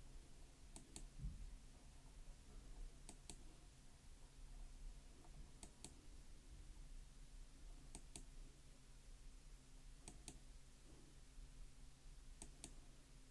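Faint pairs of clicks from a computer key or mouse button, six pairs about two seconds apart, over a low steady electrical hum.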